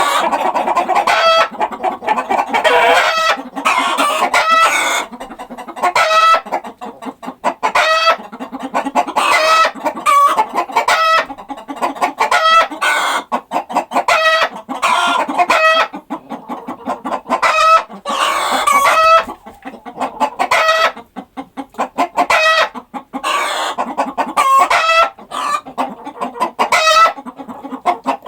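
A flock of chickens clucking and calling, many short calls following one another with hardly a break.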